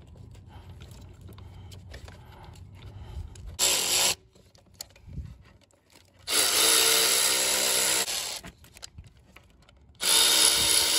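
Cordless electric ratchet running down the new high-pressure fuel pump's bolts with a 13 mm socket, in three bursts: a short one about three and a half seconds in, then two of about two seconds each. Before them come soft clicks of parts being handled.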